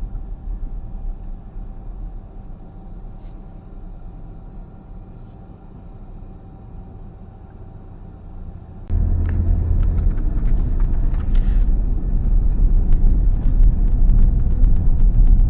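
Car driving, low road rumble heard from the vehicle. About nine seconds in it jumps suddenly louder, with many quick ticks and crackles over the rumble.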